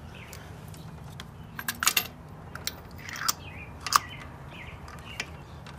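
Scattered metal clicks and clinks of a long socket extension and spark plug socket as a new spark plug is fitted into a Volkswagen Eos's 2.0-litre turbo engine, with a quick cluster about two seconds in and a single sharp click near four seconds.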